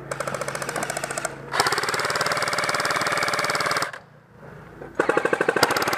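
Airsoft guns firing full-auto bursts: a rapid rattle of shots, a longer, denser burst of about two seconds, then after a short pause another burst near the end.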